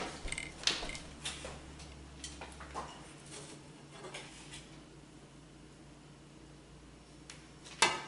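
Light clicks and knocks of a utensil against an empty nonstick frying pan on an electric stove, with one louder clatter near the end.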